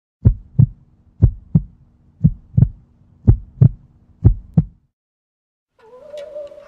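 Heartbeat sound effect: five double thumps, lub-dub, about one a second over a faint low hum. It stops, and music starts near the end.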